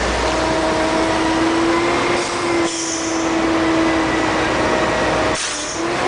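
Mack front-loader garbage truck's diesel engine running as the truck drives, heard from inside the cab, with a steady whining tone over the engine noise. The sound dips briefly twice, about two and a half and five and a half seconds in, each dip with a short hiss.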